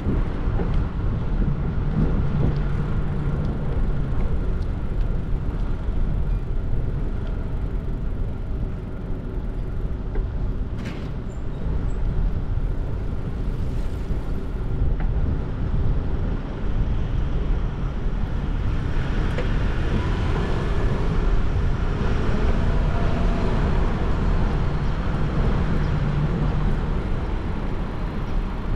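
City road traffic: cars and buses passing with a steady low rumble of engines and tyres. A single sharp click comes about eleven seconds in.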